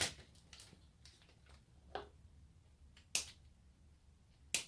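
A few sharp clicks and light taps, four in all, spaced out with quiet between: small plastic and electronic parts of a dismantled electronic toy being handled.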